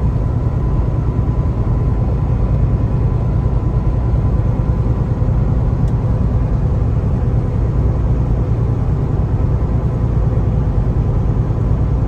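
Steady drone of a Kenworth T680 semi truck cruising at highway speed, heard from inside the cab: low engine hum mixed with road and tyre noise.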